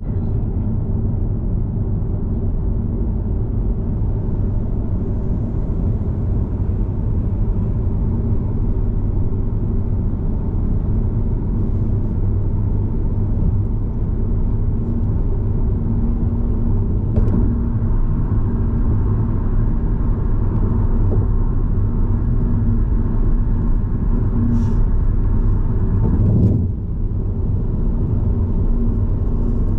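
Car driving on the road: a steady low rumble of engine and tyres. A higher hum joins a little past halfway and cuts off suddenly near the end.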